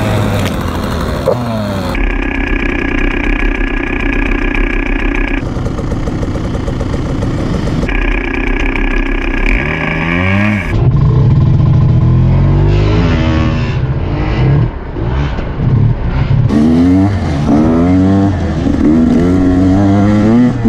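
Off-road motorcycle engine revving up and down, its pitch repeatedly rising and falling as the throttle opens and closes.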